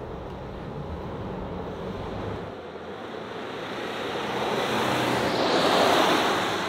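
A Toyota LandCruiser 70 Series with its four-cylinder turbo-diesel under acceleration on a track. First comes a steady low engine hum, then the ute driving past: a rushing tyre and wind noise that swells to a peak about six seconds in and begins to fade.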